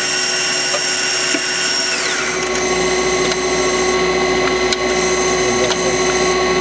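Citizen Swiss-type CNC lathe running, its spindles and drives giving a steady multi-tone whine. About two seconds in, one high whine falls steeply in pitch as a spindle slows, and a few light clicks follow.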